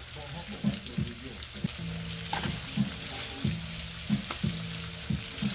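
Bacon and green peppers sizzling in a cast iron skillet, with a few sharp clicks of metal tongs against the pan as pieces are lifted out.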